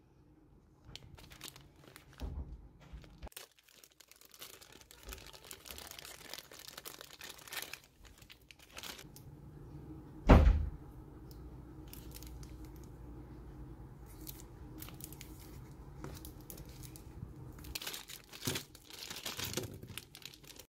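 Plastic packaging crinkling and rustling as washi tape rolls in clear wrapping are handled, with rolls clicking down on a wooden table. One much louder knock about halfway through.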